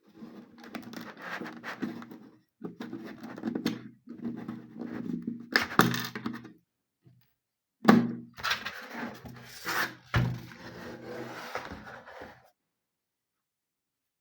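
Handling noise from a quartz wall clock and its packaging being moved about: scrapes and rustling broken by several sharp thunks, the loudest about six and eight seconds in, then quiet for the last couple of seconds.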